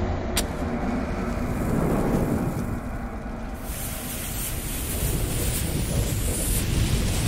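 Sound effects of fire and a burning fuse: a steady low rumble with a hiss, after a short click near the start. The hiss grows brighter about three and a half seconds in.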